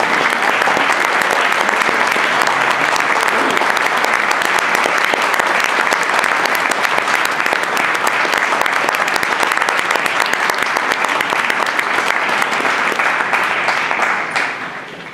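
Theatre audience applauding: dense, steady clapping that dies away near the end.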